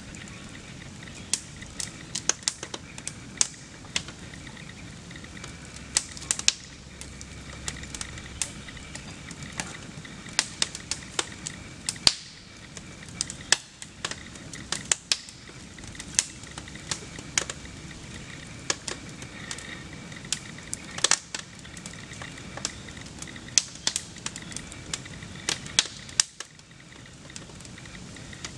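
Upright piano burning, its wood fire crackling with sharp, irregular pops, at times several a second.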